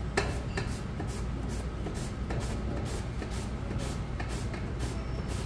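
Korean white radish being shredded on a hand grater over a steel bowl, a short rasping stroke about three times a second. A steady low hum runs underneath.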